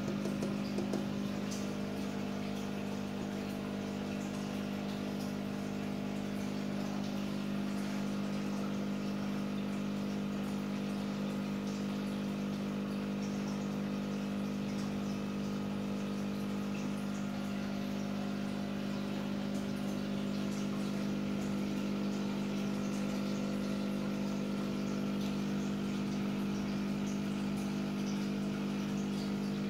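Aquarium pump humming steadily, with a light bubbling and trickling of water over it.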